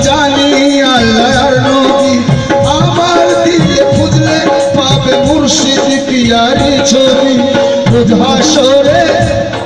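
Live qawwali music played through a PA: tabla keeping a steady beat under a wavering keyboard melody.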